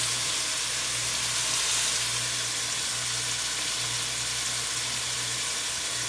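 Seasoned 80/20 ground beef sizzling steadily as it browns in a hot pot.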